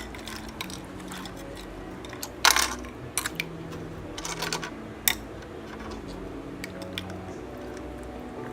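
Small plastic toy charms knocking and clicking against each other and the container in runny water slime. There are a few scattered clicks, the loudest about two and a half seconds in.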